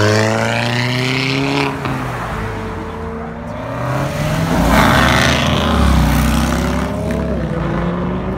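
Cars accelerating away. First a lowered Volkswagen Golf hatchback pulls off, its engine note rising before it breaks off about two seconds in. Then a second car passes about five seconds in with a louder, deeper exhaust sound and revs up again near the end.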